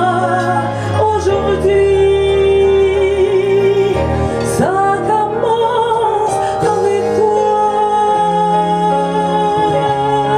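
A woman singing into a microphone over amplified backing music, holding long notes, one early and another from about six seconds in to the end.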